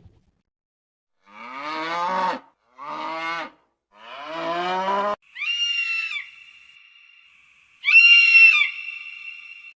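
Animal calls: three lower calls of about a second each, then two short high-pitched calls a couple of seconds apart, each leaving a lingering high tone.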